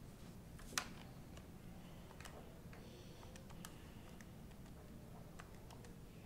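Light plastic clicks of buttons pressed on a TI-84 Plus C Silver Edition graphing calculator, coming irregularly over a low room hum, with one sharper click about a second in.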